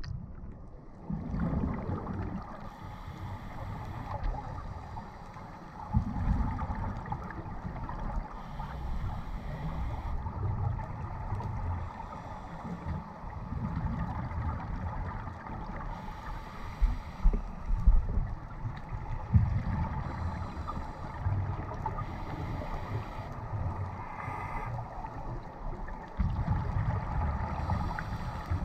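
Scuba diver breathing through a regulator underwater: a hiss on each inhale alternating with a low bubbling rumble on each exhale, a breath every four to five seconds.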